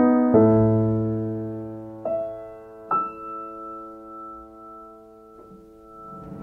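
Soft solo piano music: a chord struck at the start and again just after, then two more notes about two and three seconds in, each left to ring and slowly fade.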